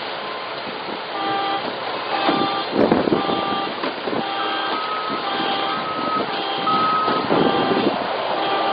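A vehicle's reversing alarm beeping repeatedly, about one beep a second, over steady outdoor noise with a few knocks.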